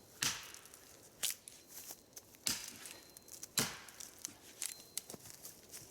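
Axe chopping into a tree trunk: four hard strikes about a second apart, then a few lighter knocks.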